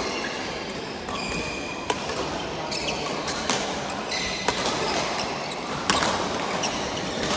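Badminton rally: a shuttlecock is struck back and forth by rackets with sharp cracks about four times, roughly a second or so apart. Court shoes squeak briefly on the floor between hits.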